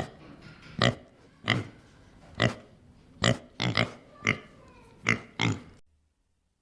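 An animal giving a series of about ten short grunting calls, a little under a second apart, stopping about a second before the end.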